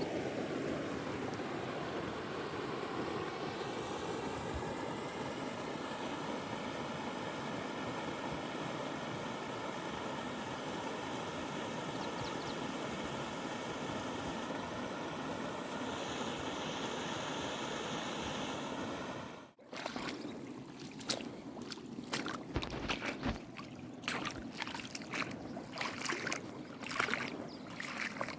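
Mountain river flowing: a steady rush of water, then after a sudden cut about two-thirds of the way through, closer splashing and gurgling in irregular bursts.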